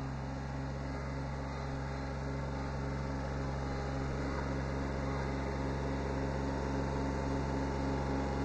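Kubota B7100 HST compact tractor's three-cylinder diesel engine running steadily as the tractor backs up slowly, gradually getting louder.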